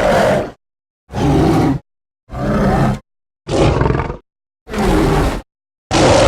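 Gigantopithecus creature sound effects: six short ape-like calls in a row, each under a second long, with about half a second of silence between them.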